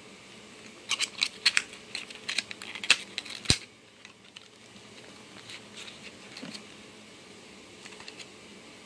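Plastic clicking and crinkling as a toy figure and its clear plastic packaging are handled: a quick run of sharp clicks in the first few seconds ending in one loud snap, then quieter rustling.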